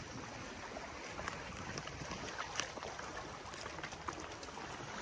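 Small sea waves lapping and gurgling, with scattered little splashes and drips.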